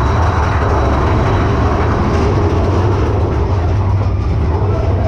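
Mine-train roller coaster cars rolling along the track: a steady, loud, low rumble of wheels on rails, heard from a seat in the moving car.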